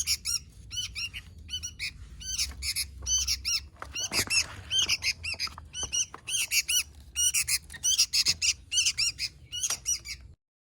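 Sooty-headed bulbul (kutilang) calling energetically in a rapid, near-unbroken string of short, arching chirps and chatters, cutting off abruptly near the end.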